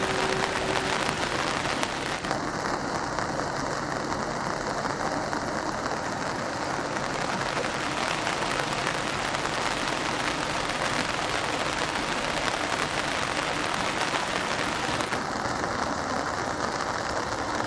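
Heavy rain pouring steadily. A single held note, the tail of a passing train's locomotive horn, stops about a second in.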